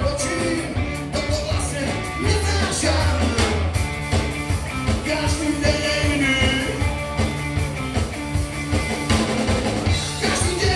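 Live rock band playing: electric guitars, bass guitar and drum kit, with a lead vocal singing over them.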